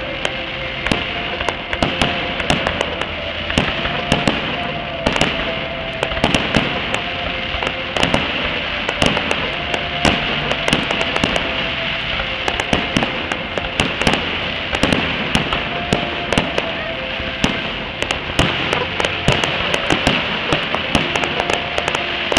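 Fireworks display: aerial shells bursting in a continuous, irregular string of bangs and crackles, several a second, over a steady rumble from the barrage.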